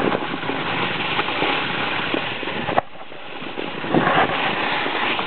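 Snowboard riding over snow: a steady scraping rush of the board on the snow, which drops away for about a second a little past the middle and then comes back with a few short scrapes.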